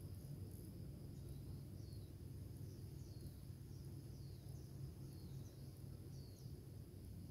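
Faint outdoor ambience: a small bird repeating short, high chirps that fall in pitch, over a low steady rumble.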